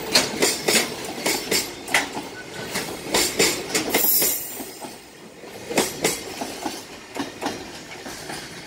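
Wheels of a passing JR Freight container train of Koki 104 flatcars clacking over rail joints in quick runs as each bogie goes by. The clacks thin out and grow fainter after about five seconds as the last wagons pass.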